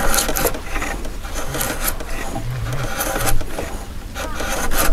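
Korean hanok chisel pushed by hand along a wooden beam, paring off thin shavings: four scraping strokes about a second apart.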